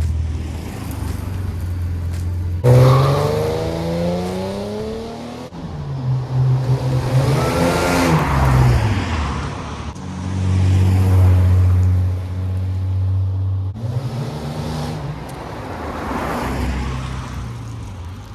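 Supercharged Holden L67 3.8-litre V6 accelerating hard, its pitch climbing and dropping back several times as it changes gear. About eight seconds in, the car sweeps past with its pitch rising and then falling.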